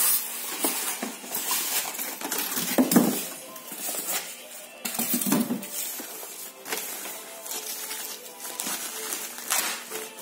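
Packaging being handled while a subwoofer is unpacked: irregular rustling and scraping, with a couple of dull knocks about 3 and 5 seconds in.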